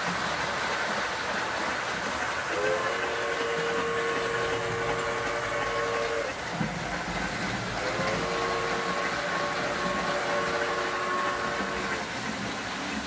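Model train locomotive's whistle blowing two long blasts of several tones together, each about three and a half seconds, over the steady running noise of the train on the track.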